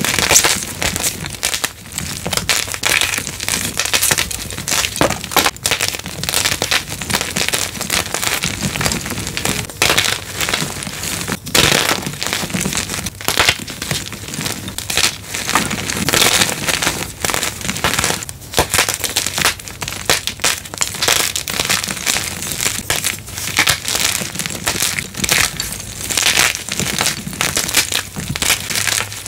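Blocks of gym chalk being crushed: a dense, continuous run of crisp, crumbly crunches and crackles.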